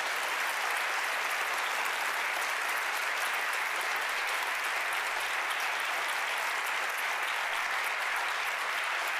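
Television studio audience applauding steadily: dense, even clapping from a large crowd.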